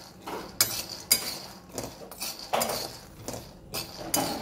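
Metal spatula stirring raw peanuts as they dry-roast in a metal kadhai: uneven scrapes and clinks of the spatula on the pan, with peanuts rattling, about two strokes a second.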